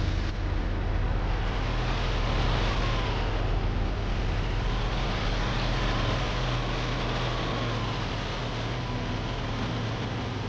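A large engine running steadily with a deep drone, the sound of farm machinery at work, with a faint wavering whine above it; it gets slightly quieter over the last few seconds.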